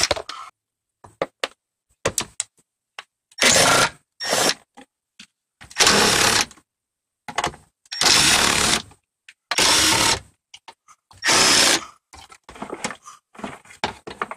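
Cordless impact wrench undoing the seat mounting bolts in a car's floor, running in about six short bursts of hammering, each under a second, with light clicks and rattles near the end.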